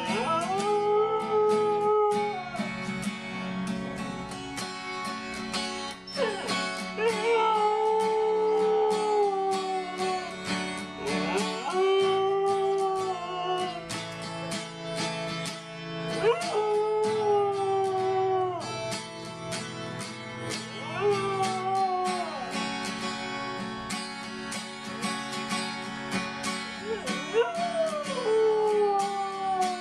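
A dog howling along to a strummed acoustic guitar: about six long howls, each sliding up in pitch and then held for two or three seconds, some falling away at the end.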